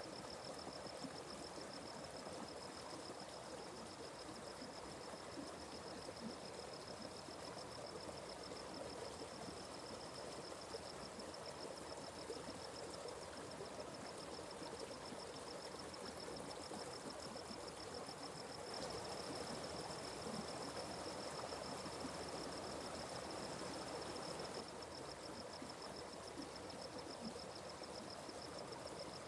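Atlantic Forest creek running steadily, with an insect's continuous high, finely pulsed trill over the water. The flow swells a little for a few seconds past the middle.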